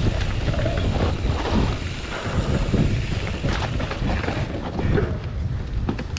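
Wind buffeting the microphone of a chest-mounted GoPro as a mountain bike rolls fast down a dirt trail, with the low rumble of the tyres and frequent rattling knocks from the bike over bumps.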